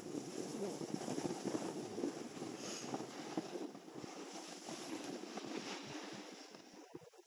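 Snowboard sliding and scraping over the piste snow, with wind buffeting the microphone; the noise eases off near the end.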